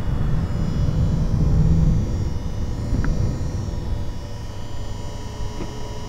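Water-cooling pump of an EVGA RTX 2080 Ti XC Hybrid graphics card at idle, picked up close: a steady, refrigerator-like hum with a thin whine of several fixed tones over a low rumble that is strongest for the first two seconds. This is the pump noise behind the card's idle noise.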